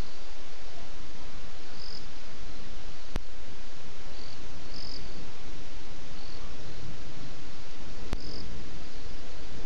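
Night insects chirping over a steady hiss: short, high chirps repeating irregularly every second or so. Two sharp clicks come about three seconds and eight seconds in.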